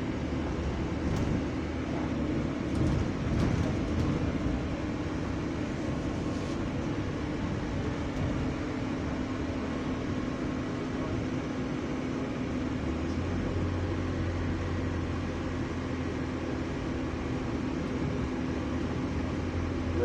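Double-decker bus running, heard inside the upper deck: a steady drone of engine and drivetrain with a constant hum, and a deeper hum that comes in strongly about thirteen seconds in.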